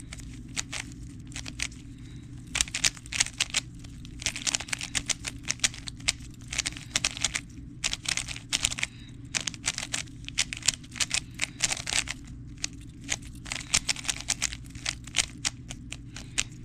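Plastic 3x3 speedcube, a budget model without magnets, turned fast during a speedsolve: rapid runs of clicking and clacking as the layers snap round, in flurries broken by short pauses.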